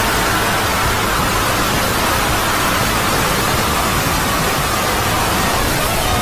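Loud, steady hiss of noise spread evenly across all pitches, like TV static, with faint tones beneath it.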